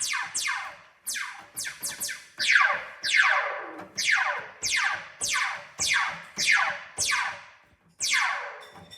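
Synthesized laser-gun sound effect: a rapid series of "pew" zaps, each a quick falling sweep from high to low pitch. The zaps come at about two a second, some in quick pairs.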